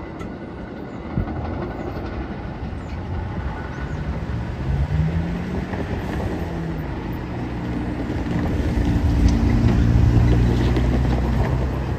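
Cars driving over a railroad grade crossing, with an engine accelerating about five seconds in and a vehicle passing close and loudest around nine to ten seconds in. Under it runs the fading rumble of a departing commuter train.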